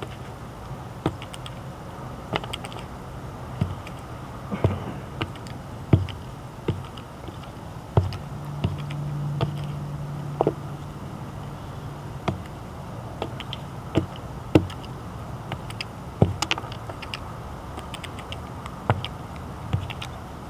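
Peacock pecking shelled peanuts off the ground close by, its beak striking in irregular, sharp taps. A low steady hum comes in for a few seconds around the middle.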